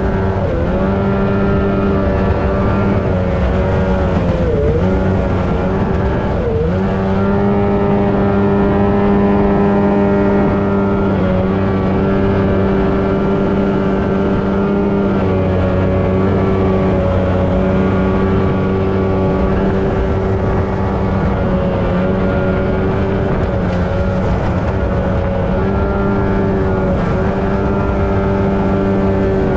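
The two-stroke engine of a mini Superjet jet boat running steadily at speed over the rush of water. Its pitch dips briefly a couple of times about five to seven seconds in and then recovers.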